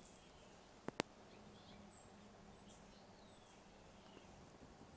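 Near silence: quiet room tone, with two faint clicks about a second in and a few faint, high chirps.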